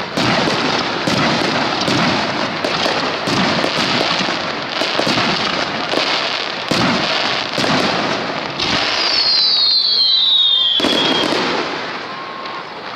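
Starmine fireworks barrage: rapid shell bursts, several reports a second, over continuous crackling. A high whistle falls in pitch about two-thirds through, and the bursts ease off near the end.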